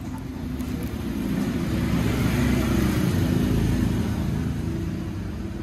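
A motor vehicle's engine running on a nearby street, growing louder toward the middle and fading again, like traffic passing.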